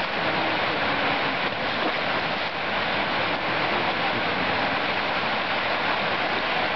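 Steady rushing of whitewater from a standing river wave breaking continuously in the Lachine Rapids of the St. Lawrence River.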